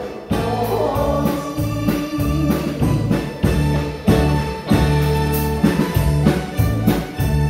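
Live band of drums, electric guitar, bass and keyboard playing with a steady drum beat. A woman's sung phrase through a microphone tails off about a second in, and the band plays on without the voice.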